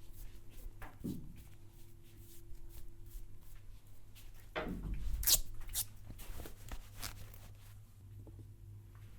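Barber's hands massaging head and back: rubbing and scratching on hair and skin, with scattered crackly clicks and a sharper click about five seconds in.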